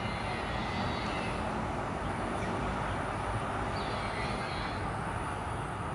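Steady outdoor background noise like distant city traffic, an even hum without distinct events.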